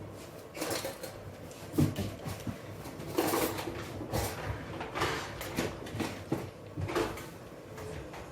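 Kitchen clatter: a series of irregular knocks and bumps of dishes, pans and cupboards being handled and set down.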